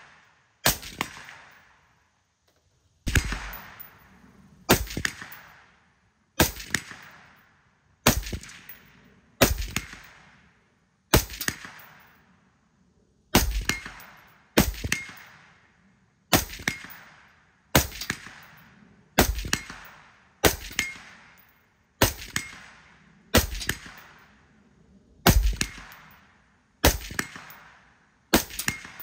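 Suppressed Black Rifle Arms C.A.P.S. external-piston AR-style rifle fired in slow semi-automatic shots, about eighteen, roughly one every one and a half seconds, each a sharp report that dies away over about a second.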